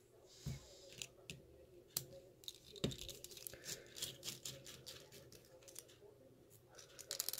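Faint scattered metallic clicks and short scrapes of a Medeco payphone lock being handled and taken apart by hand, with a quick run of clicks near the end.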